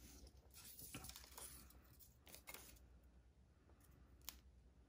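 Faint rustling and a few soft clicks from handling a roll of mini glue dots and small paper pieces.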